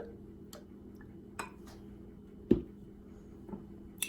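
Kitchen utensils and containers being handled: a few light clicks and one sharper knock about two and a half seconds in.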